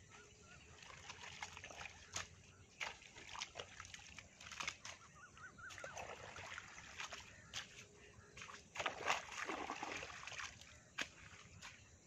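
Water splashing and trickling, with irregular sloshing spurts that are busiest about nine seconds in.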